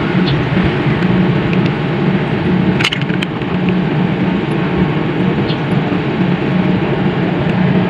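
Steady low mechanical hum, with a sharp click about three seconds in.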